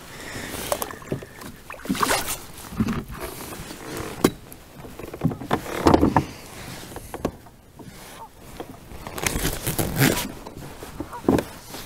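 Scattered knocks, scrapes and rustles of a person shifting and handling gear in a plastic fishing kayak, with a few louder knocks.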